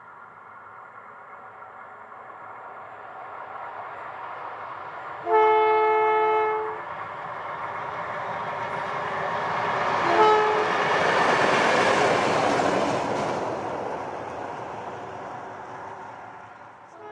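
Two ex-South Australian Railways 830-class ALCO diesel locomotives running light engine: the multi-note horn sounds one long blast about five seconds in and a short toot about ten seconds in. The engine and wheel noise builds as the locomotives pass, loudest about twelve seconds in, then fades away.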